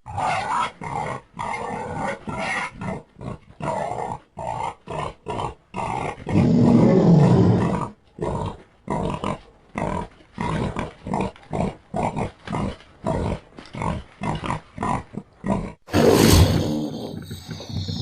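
Designed creature sound effect for the extinct Estemmenosuchus: a quick string of short grunts, about two a second, with one longer, louder growl about seven seconds in, then a different, louder call starting near the end.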